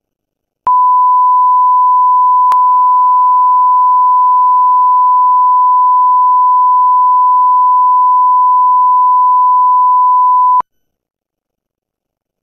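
Video line-up test tone that goes with colour bars: a loud, steady 1 kHz beep at one pitch. It starts just under a second in, has a faint click about two seconds in, and cuts off suddenly after about ten seconds.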